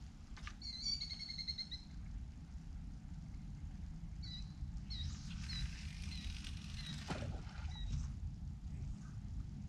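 Small birds chirping over a steady low wind rumble: a quick run of repeated high notes about a second in, then scattered single chirps. A soft hiss comes midway and ends in a sharp click.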